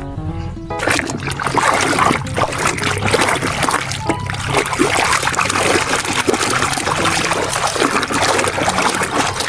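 Water running and splashing over a muddy toy as it is washed, starting about a second in. A few short musical notes play just before the water starts.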